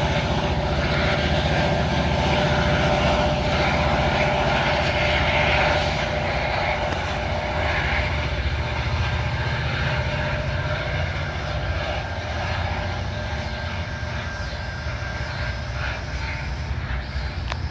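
Diesel locomotive's EMD 16-cylinder two-stroke prime mover working under throttle as the push-pull commuter train pulls away, a steady low drone that slowly fades as it moves off.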